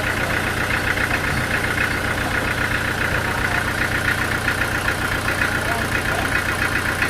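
Machinery engine running steadily with a fast, even pulsing beat.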